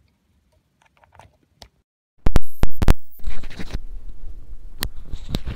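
Near silence, then about two seconds in a run of loud sharp pops as the Movo PM10 lavalier microphone's plug goes into the phone's headphone jack, followed by scratching and rubbing of the mic being handled close up.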